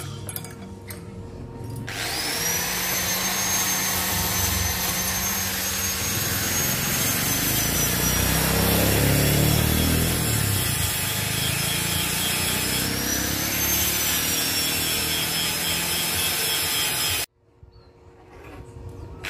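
Electric angle grinder spinning up with a quickly rising whine and cutting steel, running steadily for about fifteen seconds before cutting off suddenly.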